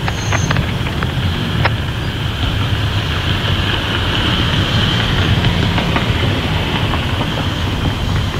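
Norfolk Southern intermodal train's flatcars, loaded with highway trailers, rolling past: a steady rumble with sharp wheel clicks over rail joints, most of them in the first two seconds.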